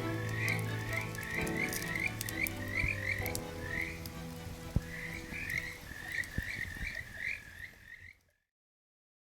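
Frogs calling: a quick run of short rising chirps, two or three a second, over soft sustained low tones. All of it cuts off abruptly about eight seconds in.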